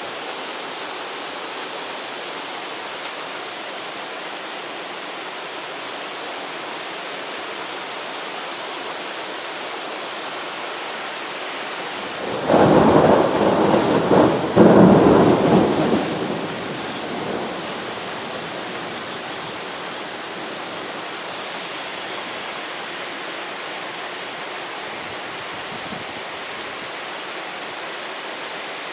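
Steady rain hissing throughout a thunderstorm. About halfway through comes a loud thunderclap with rolling rumble in two surges, lasting about four seconds before fading back into the rain.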